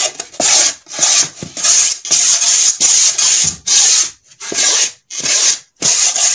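Coarse sandpaper rubbed by hand back and forth over an extruded polystyrene foam board, roughening its surface so the glue grips. It comes as a run of rasping strokes, about one and a half a second, with brief gaps between them.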